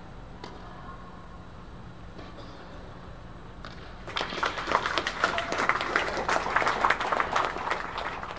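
Spectators clapping for about four seconds, starting about four seconds in, after a low steady hum.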